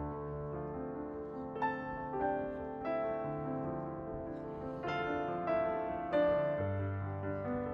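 Soft background piano music, slow notes and chords ringing over one another.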